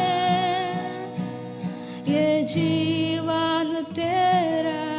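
Closing bars of a Hindi Christian worship song: accompaniment with long held notes and no lyrics sung.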